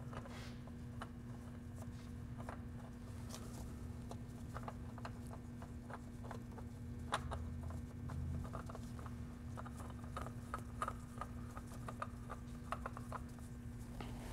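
Faint scattered clicks and light scraping of a new spin-on oil filter being handled and threaded onto its mount by hand, over a steady low hum.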